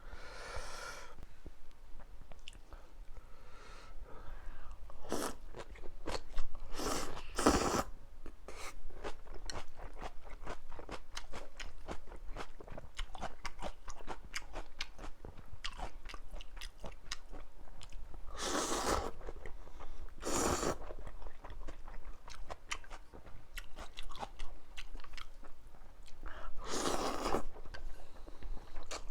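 Close-miked eating of mala ramen noodles: steady wet chewing and mouth clicks, with five longer noisy slurps spread through.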